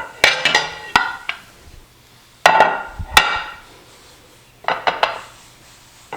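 Kitchenware being knocked: three bursts of sharp knocks and clinks with a brief ring, about the start, about two and a half seconds in and near five seconds in. It fits an upturned cup of rice being tapped to loosen it onto the plate.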